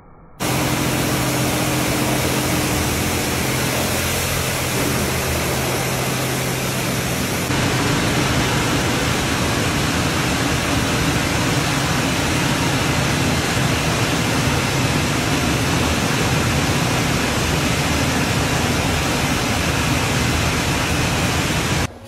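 LeisuWash touchless automatic car wash machine running: a loud, steady rushing hiss with a low motor hum under it. About seven seconds in, the hum drops out and the rushing gets a little louder. It cuts in and out abruptly.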